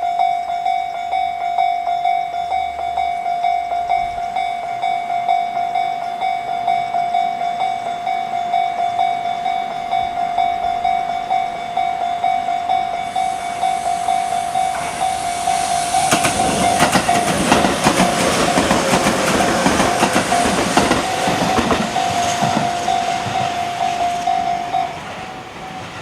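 A Japanese level crossing's electronic warning bell, Tobu 'sound C' type, rings in a steady repeating tone. A Tobu 20400 series electric train approaches and passes through, its wheels clattering loudly over the rails for several seconds. The bell cuts off near the end, just after the train has cleared.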